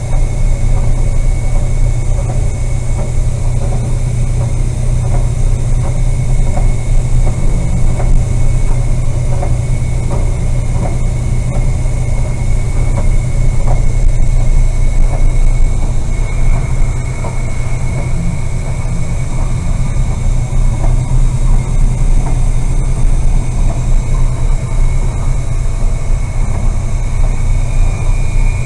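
Steady, loud low engine rumble, with a thin high whine over it.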